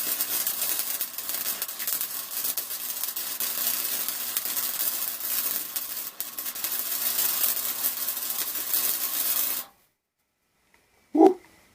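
Arc welding on the steel exhaust: one continuous bead of steady crackling and sizzling with a faint electrical hum under it, stopping suddenly about ten seconds in. Slag and flying spatter come with it.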